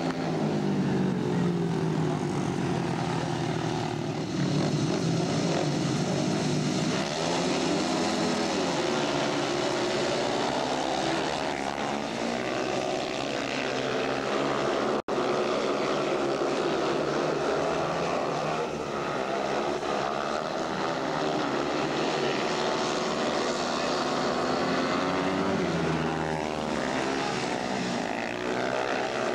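Several 500cc single-cylinder speedway motorcycles racing together, their engine notes rising and falling and overlapping as the riders accelerate and pass. The sound breaks off for an instant about halfway through.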